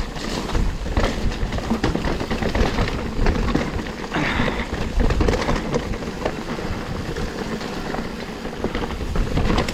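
Mountain bike rolling fast down a wet, rocky trail on Specialized Cannibal tyres: the tyres rumble and crunch over rocks and roots, and the bike rattles and knocks over the bumps, with a brief hiss about four seconds in.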